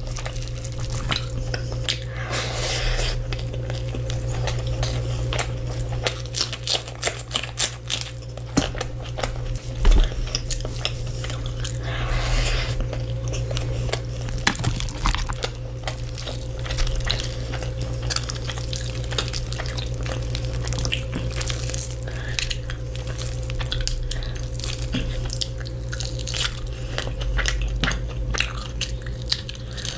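Close-miked eating: a person biting and chewing crunchy food, with many sharp crunches in quick, uneven succession over a steady low hum.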